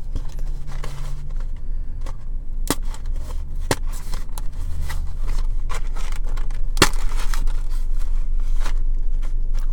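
Snack box packaging being handled and opened, with scattered small crinkles and clicks and three sharp snaps, over a steady low hum.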